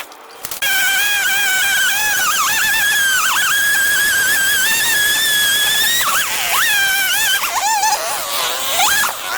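Chainsaw cutting through a log at high revs, its whine dipping in pitch again and again as the chain bogs under load. It starts suddenly about half a second in.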